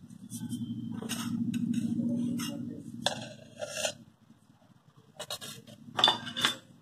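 Cardamom powder being sprinkled and rubbed off the fingers into a steel bowl of curd and chopped dry fruit: a low rubbing rumble for about three seconds, then a few short clicks and scrapes against the steel bowl.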